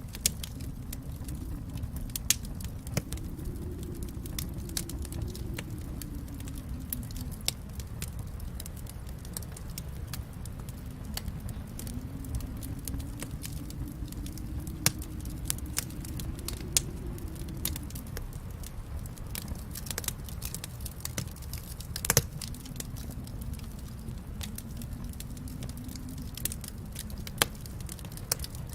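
Fire in a fireplace crackling: irregular sharp pops and snaps over a steady low rumble that swells and fades slowly, with one louder pop about three-quarters of the way through.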